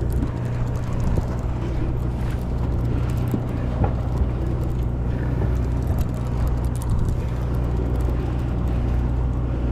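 Fishing boat's engine running with a steady low hum, with sea and wind noise over it.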